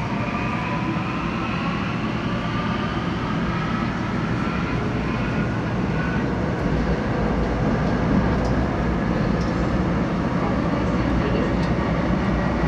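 Seoul Metro Line 9 9000-series electric train running, its traction motors whining in a rising pitch as it speeds up over the first few seconds. A steady rumble of wheels on rail follows.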